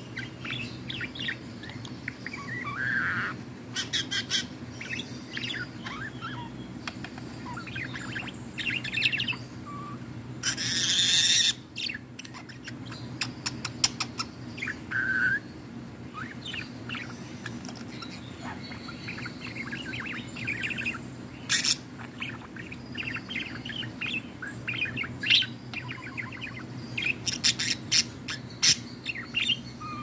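Female budgerigar singing: a continuous run of chirps, warbles and rapid clicking chatter, with one loud harsh burst about a third of the way in.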